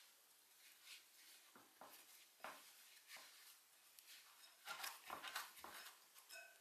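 Faint soft squishes and rustles of hands kneading bread dough in a ceramic bowl and working in the loose flour, in short irregular strokes that get busier about five seconds in.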